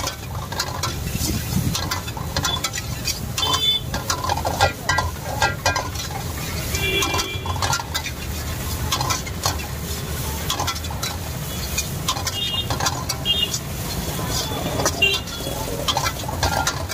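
Steel spatula repeatedly scraping and clanking against a metal wok as vegetables are stir-fried, with quick irregular strikes and short metallic rings. A low steady rumble runs beneath.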